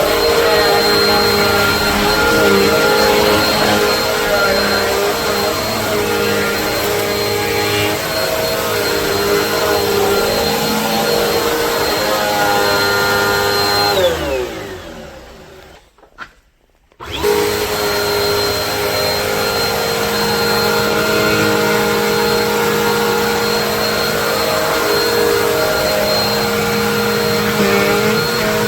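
Bissell AeroSwift Turbo Compact upright vacuum running with a steady high whine. About halfway through it is switched off and its motor winds down, a click sounds in the short quiet, and then it starts up again at full speed.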